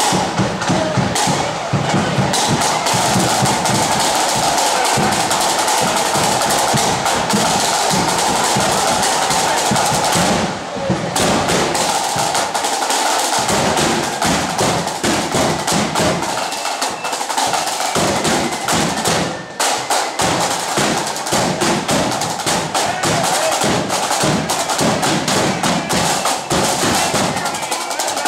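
Marching flute band's drums playing a march beat: rapid snare drum strokes and rolls over bass drum beats, the flutes not yet playing.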